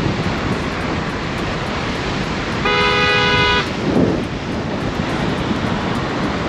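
Steady rush of wind and tyre noise from a moving car on a wet road. Near the middle, a car horn sounds once for just under a second, with a low gust of wind on the microphone right after.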